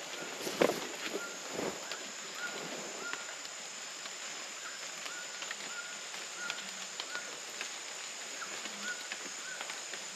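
A toucan calling from the forest: a long series of short notes, all at the same pitch, one or two a second, over a steady high hiss of insects. A loud thump sounds about half a second in.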